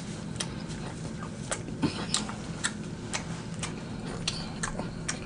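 Close-miked chewing: irregular wet mouth clicks and smacks from a person eating fried food, with a faint steady low hum underneath.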